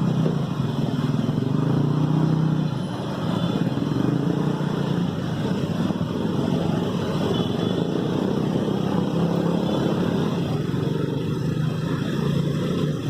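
Road traffic with motorcycle engines running by, a steady mixed engine noise.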